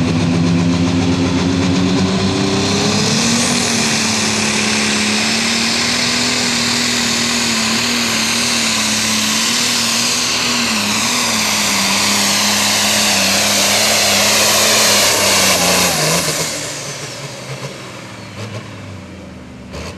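International super stock pulling tractor's turbocharged diesel engine running flat out under load as it drags the sled, with a high turbo whine climbing about three seconds in. About sixteen seconds in the throttle is cut and the engine falls to a much quieter run.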